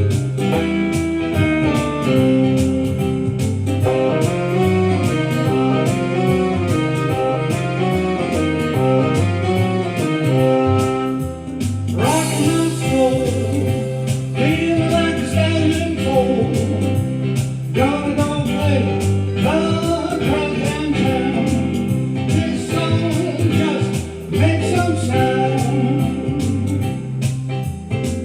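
Blues song recording: a band plays with a stepping bass line and chords, then a crash about twelve seconds in, after which a singing voice carries on over the band.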